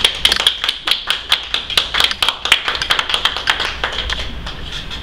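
A small audience applauding, separate claps rather than a roar, thinning out about four seconds in.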